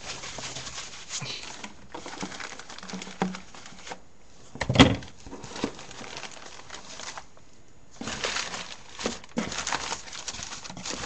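Rustling and handling of packing material and parts in a shipping box, with scattered light clicks and one sharp knock about five seconds in.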